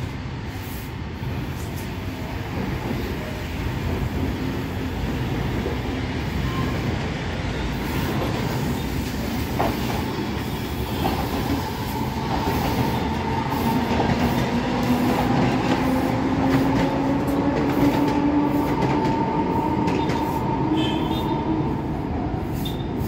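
Aerosol can of nickel spray paint hissing in a long, steady spray as it coats a rusted dog chain to refinish it.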